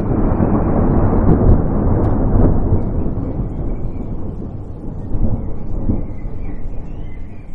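Thunder rumbling: a long low roll that swells over the first couple of seconds, then slowly dies away.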